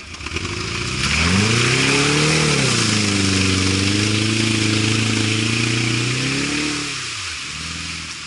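Off-road 4x4's engine revving hard under load. Its pitch climbs about a second in, dips briefly, is held high for several seconds, then drops away near the end. A loud rushing hiss runs over it while it is on the throttle.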